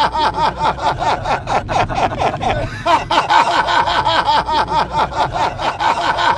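A man laughing hard inside a car: a long fit of rapid, repeated "ha" pulses, breaking off briefly about three seconds in and then picking up again.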